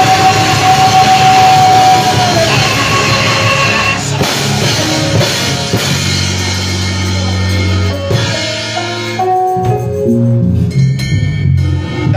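Live band music with a drum kit, a long held note in the first couple of seconds. About nine seconds in the full band drops away, leaving a few separate held notes.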